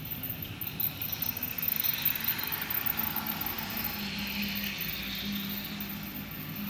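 RailKing model steam train running on its track: a rattle of wheels over the rails, with a steady low motor hum coming up about four seconds in.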